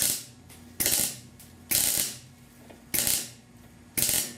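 MIG welder striking a series of short tack welds on thin sheet-metal roof panel: five brief bursts of arc crackle, about one a second, each starting sharply and dying away quickly. The welder calls it a horrible arc and a horrible weld, which he blames on a magnet disturbing the arc and on too little heat.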